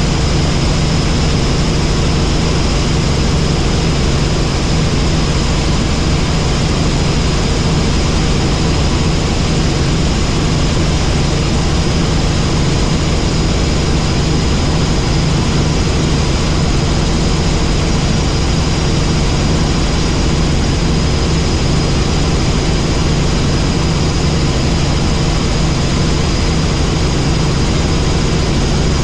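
Helicopter running steadily: a constant engine and rotor drone with a strong low hum and a faint high whine, unchanging throughout.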